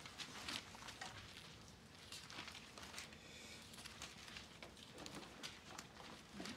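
Faint handling rustles and a few light clicks at a lectern while a Bible passage is looked up, over quiet room tone.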